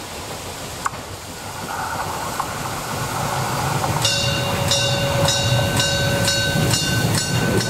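Molli steam locomotive 99 2321-0 hauling its long train past at close range: a low rumble that grows louder as it nears. From about four seconds in, a regular beat of about two strokes a second comes in, with a steady high squeal over it.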